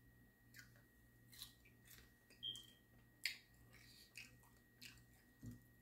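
Faint chewing of barbecue wings and fries, with a scatter of small wet mouth clicks and smacks at uneven intervals.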